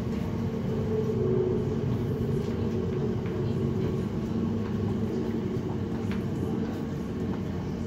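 Elizabeth line Class 345 train heard from inside the carriage as it pulls into a station platform and slows: a steady low running rumble with a faint motor hum.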